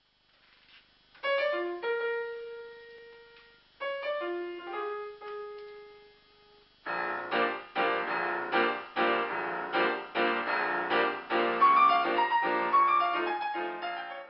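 Piano music: two chords struck and left to ring out, then from about seven seconds in a busier passage of repeated chords at a steady pulse.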